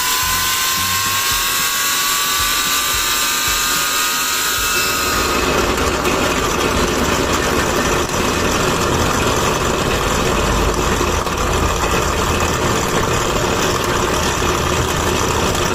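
Small homemade steam turbine spinning its DC-motor generator: a high whine rising slowly in pitch over the rush of steam. About five seconds in the whine drops out, and a rougher rushing noise with a low rumble carries on steadily.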